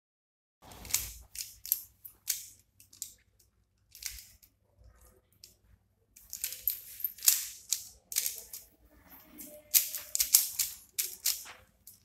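3x3 Rubik's cube being turned fast in the hands: quick flurries of plastic clicks and clacks as the layers snap round, with short pauses between flurries, busier in the second half.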